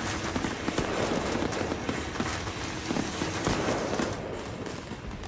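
Fireworks going off inside a house: a dense, rapid crackle of sharp pops and bangs that thins out and grows quieter about four seconds in.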